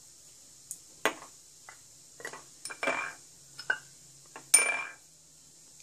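A spoon clinking against a glass bowl as spices are spooned in: about six sharp clinks, several with a short ring, the loudest about four and a half seconds in.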